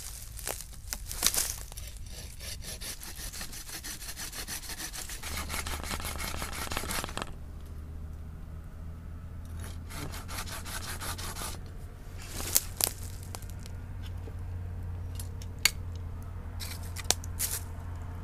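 Rapid, scratchy rubbing strokes against wood for about seven seconds, then quieter handling with a few sharp clicks.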